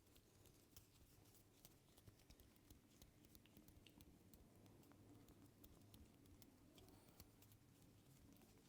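Faint, irregular light taps and clicks of a barber's hands working over a customer's head in a head massage.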